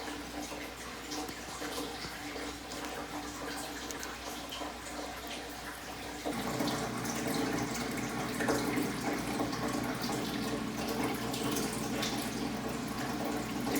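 Water running from a tap into a sink, the flow getting louder and fuller about six seconds in.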